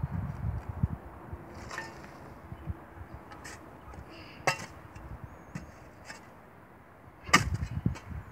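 Shovel digging in dry dirt: the blade strikes and scrapes the ground in several separate strokes, the loudest near the end, with low thuds of soil between them.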